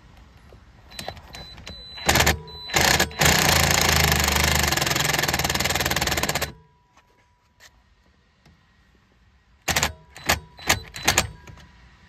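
Cordless 18V impact driver driving a screw: two short trigger blips, then about three seconds of steady hammering run that stops abruptly, then a quick string of short blips near the end as the screw is snugged down.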